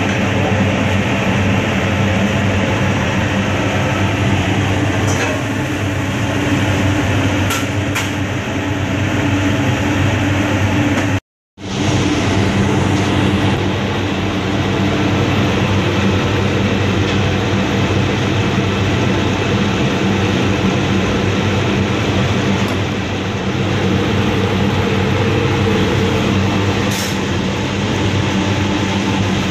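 Steady rushing roar with a low hum under it, from a commercial gas range with a large pan of rice boiling hard on the burner. It cuts out briefly about eleven seconds in.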